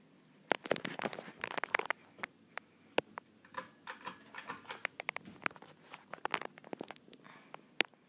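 Irregular clicks, taps and rustling of handling noise, fingers moving on the recording device close to its microphone, over the faint steady hum of a running ceiling fan.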